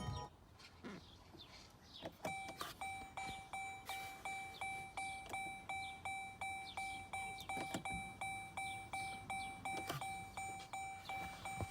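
A car's warning chime dinging over and over at an even pace, about two and a half dings a second, starting about two seconds in.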